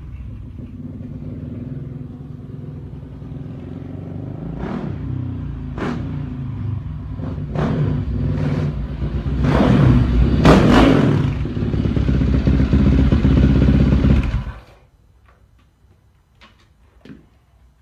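Dirt bike engine idling, then blipped several times in sharp rev bursts that build into a higher rev around the middle. The engine is held up for a few seconds and then shut off about fourteen and a half seconds in, leaving only a few faint clicks.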